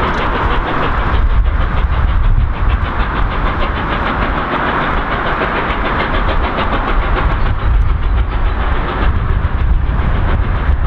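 Steam-hauled passenger train running away along the line: a steady rolling rumble from the coaches on the rails, with a fast, even pulsing.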